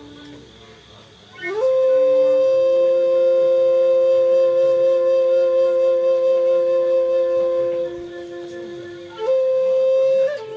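Flute playing slow, long held notes: a note slides up about a second and a half in and is held for several seconds over a lower sustained note, then breaks off and a shorter held note follows near the end.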